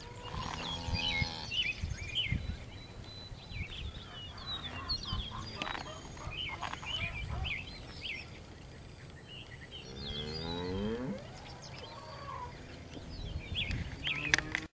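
Small birds chirping throughout, with a steer mooing twice: once about half a second in and once about ten seconds in, the second call bending in pitch.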